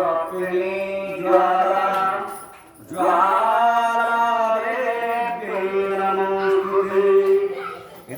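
Devotional aarti hymn being chanted, voices singing long held notes over a steady low drone, with a brief break about three seconds in.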